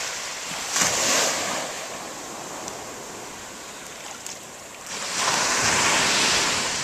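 Ocean waves breaking and washing up the beach, surging briefly about a second in and again, longer and louder, near the end, with wind buffeting the microphone.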